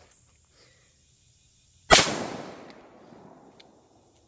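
A single shot from a Canik TP9 Elite Combat 9mm pistol, about two seconds in, sharp and loud, its echo dying away over about a second and a half.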